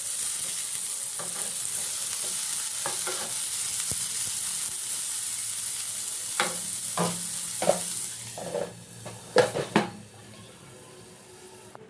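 Chopped onion, ginger, garlic and green chillies sizzling in hot oil in a kadai while being stirred. The spatula scrapes and knocks against the pan several times in the second half, and the sizzle dies down near the end.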